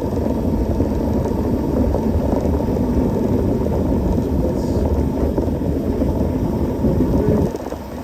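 Mountain bike being ridden on a trail: steady wind noise on the microphone mixed with the rattle of the bike. It eases off slightly near the end.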